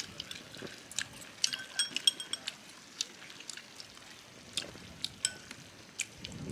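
Tableware at a meal: scattered light clicks and taps of utensils against bowls and plates, with a cluster of brighter, ringing clinks about two seconds in.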